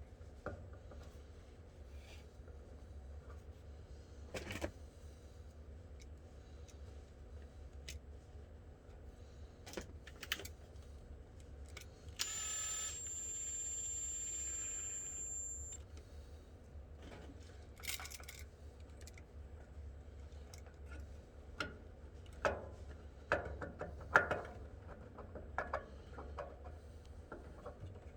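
Scattered clicks, taps and small knocks of hand tools and wires being handled during switch wiring, growing busier near the end. About halfway through, a steady high-pitched beep sounds for about three and a half seconds.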